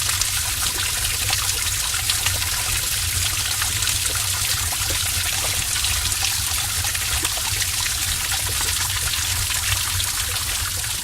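Heavy stream of water pouring and splashing in a cave: a steady dense rush full of fine splatter, with a low rumble underneath.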